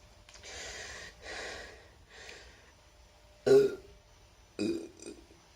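A person takes three heavy breaths, then burps loudly about three and a half seconds in, followed by a shorter burp a second later.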